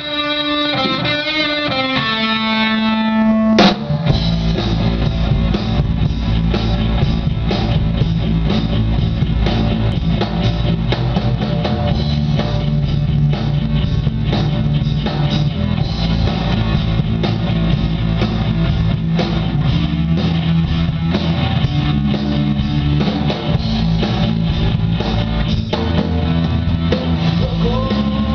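Live amateur rock band playing: an electric guitar plays a melodic lead line alone, then about four seconds in the drum kit, bass and a second electric guitar come in together on one hit, and the band plays a steady rock groove.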